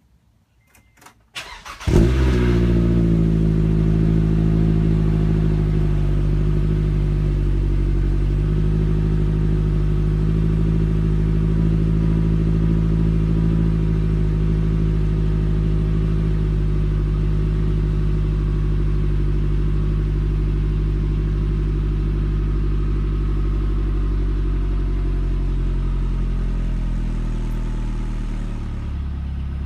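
A 2013 Scion tC's 2.5-litre four-cylinder, heard at the tailpipe through a CNT Racing aftermarket exhaust, starts about two seconds in with a brief flare and then idles steadily. Near the end the idle drops slightly lower and quieter.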